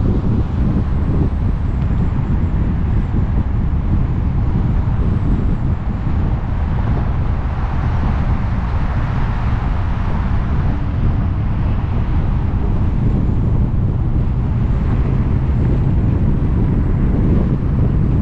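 Wind buffeting a microphone mounted on the outside of a car cruising at freeway speed, over a steady low rumble of road and tyre noise. A hiss swells briefly about halfway through.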